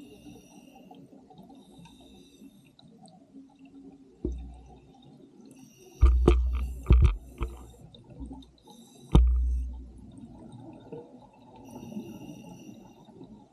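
Underwater breathing sounds of an open-circuit scuba regulator: a few bursts of exhaled bubbles rumble deep and loud past the camera housing, the biggest about six and nine seconds in. Faint high whistling comes and goes between the exhalations.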